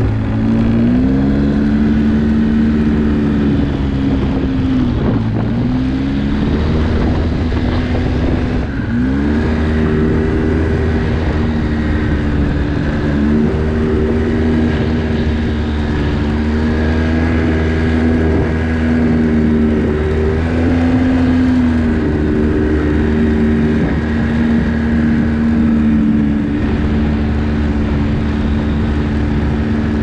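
ATV engine running under way, its pitch dropping and climbing back several times as the throttle is eased off and opened again.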